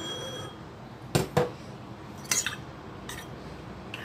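A metal spoon clinking against a ceramic bowl while coconut milk and palm sugar syrup are mixed: a few sharp separate clinks.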